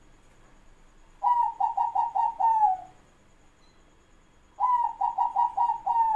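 Zebra dove (perkutut) cooing: two phrases of rapid staccato coo notes, about six to a phrase, each ending in a longer falling note, a few seconds apart.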